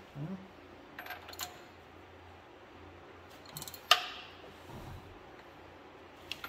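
A few sharp metallic clinks of a ratchet wrench and socket on the steel castle nut of a connecting-rod cap in a John Deere two-cylinder engine. The nut is being tightened to line up a cotter-pin hole. The loudest clink comes about four seconds in and rings briefly.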